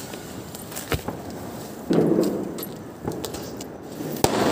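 Firecrackers going off: a sharp bang about a second in and a louder one near the end, with a noisier burst of crackling about two seconds in.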